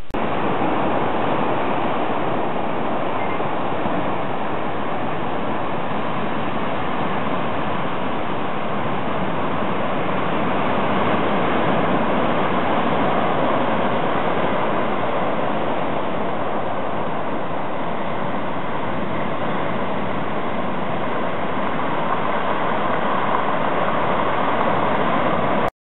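Sea surf breaking over the rocks of a rocky shore, a steady rush of water that cuts off suddenly near the end.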